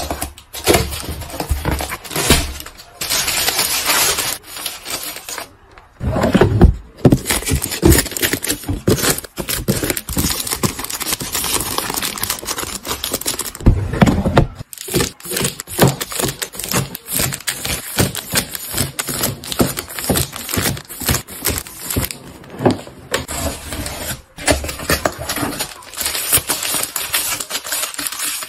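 Groceries and containers being handled and packed into a refrigerator for organizing. A dense, uneven run of clicks, taps and clinks, with stretches of rustling.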